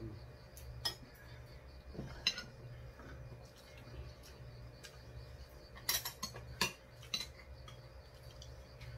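Metal spoon and chopsticks clinking and scraping against ceramic rice bowls while eating: scattered sharp clicks, the loudest a cluster about six to six and a half seconds in, over a steady low hum.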